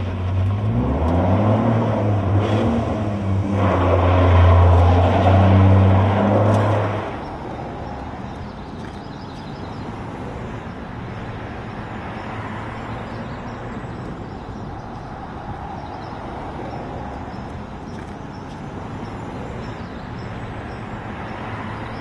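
A vehicle engine revs up, rising in pitch over the first couple of seconds, then runs steadily at the higher pitch and cuts off abruptly about seven seconds in. A steady, quieter outdoor background hum follows.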